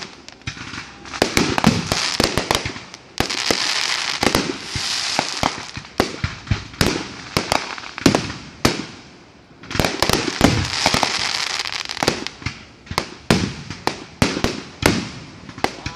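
Aerial fireworks shells bursting in quick succession: sharp bangs mixed with spells of crackling, with a brief lull a little past halfway.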